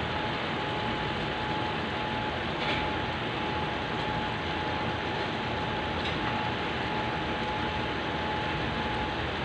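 Chicken in sauce simmering in a frying pan on the stove: a steady bubbling hiss, with a faint thin steady tone above it.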